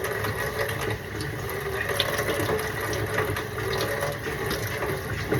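Kitchen sink tap running steadily, with a few faint small clicks.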